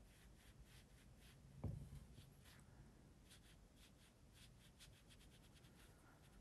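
Near silence, with faint, irregular scratchy ticks of a fine paintbrush dabbing and stroking on watercolour paper. One brief low sound about a second and a half in stands out above them.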